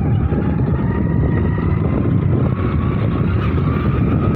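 Engine of a small vehicle running steadily while driving along, its pitch creeping slightly upward.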